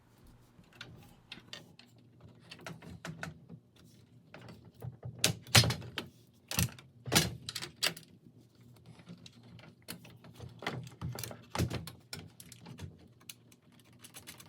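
Irregular clicks, clinks and knocks of bolts and hand tools being handled as a bracket is bolted onto a loom, with a few louder knocks around the middle.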